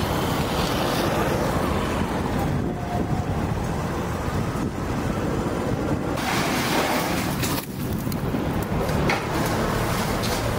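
Wind buffeting the microphone of a handheld camera outdoors: a steady, rumbling noise with no speech, shifting in strength a few times.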